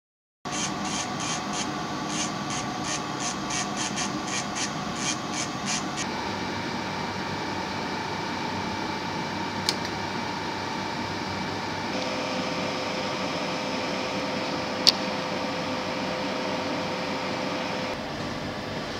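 Jeweller's bench work: a run of short scraping strokes, about three a second, over the first several seconds, then a steady hiss with a faint hum, broken twice by a sharp click.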